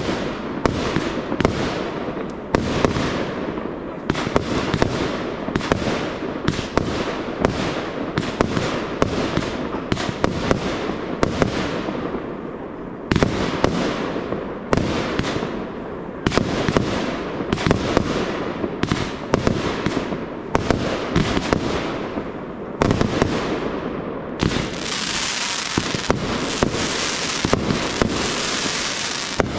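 Aerial fireworks shells launching and bursting in quick succession, several sharp bangs a second. In the last few seconds a steady crackling hiss fills in beneath the bangs.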